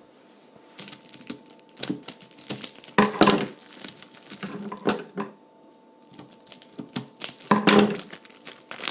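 Scissors snipping and plastic wrap crinkling and tearing as a frozen pizza is cut out of its film: irregular sharp clicks and crackles, louder in a few bunches.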